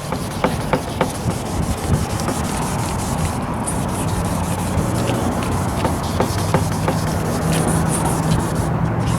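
Sandpaper scrubbing back and forth on a plastic headlight lens, a steady rubbing with small ticks through it.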